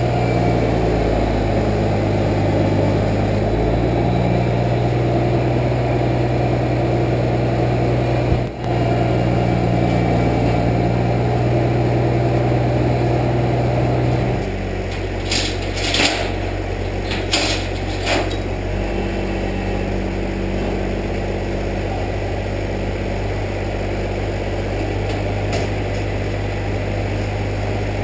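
Truck engine running steadily. About halfway through, its speed drops a little, and a few short sharp clicks or squeaks follow soon after.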